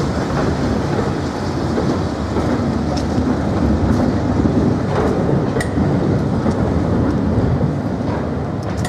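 Passenger coaches rolling across a steel lattice-girder bridge: a steady rumble of wheels on rail with sharp clicks over rail joints.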